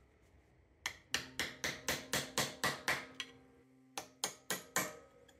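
Hammer striking a screwdriver against the tab washer of a motorcycle sprocket nut, bending the tab over. There is a quick run of sharp metal taps, about four a second, then a pause and four more, each with a short metallic ring.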